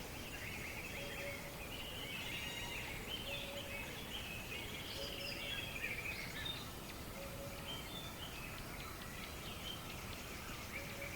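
River ambience at sunrise: many songbirds chirping and singing over a steady wash of background noise. A short low note repeats every second or two.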